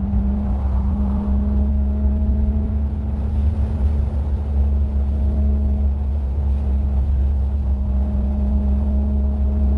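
Infiniti G35 coupe's 3.5-litre V6, fitted with ISR resonated test pipes, running at a steady engine speed with a low, even drone.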